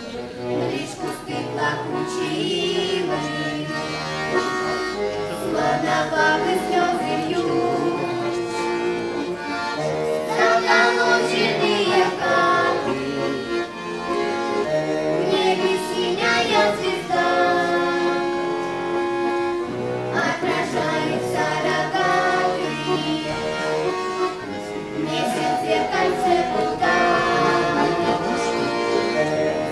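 Bayan (Russian button accordion) playing an instrumental interlude of a slow folk-style song: a melody over sustained chords.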